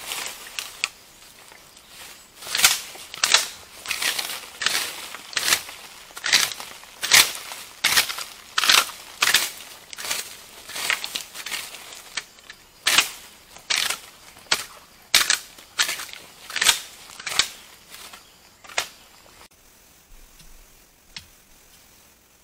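Dry bamboo leaves and litter being swept across the ground with a long bamboo stick: repeated sharp swishing scrapes, about one or two a second, stopping shortly before the end.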